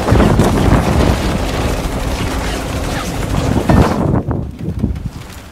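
Battle sound effect of rapid machine-gun fire and gunshots. It thins out about four seconds in to a few scattered shots.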